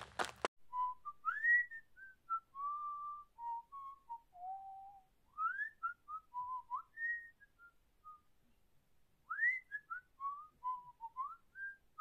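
A lone whistled tune: one clear line of short notes with quick slides up into several of them, breaking off for about a second past the middle before going on.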